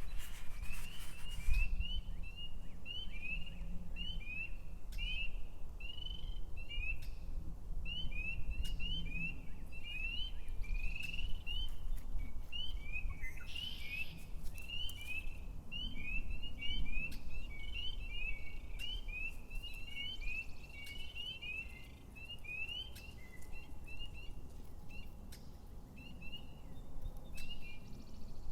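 A bird singing a long, unbroken series of short, quick chirps, about two or three a second, all at much the same high pitch, over a low background rumble.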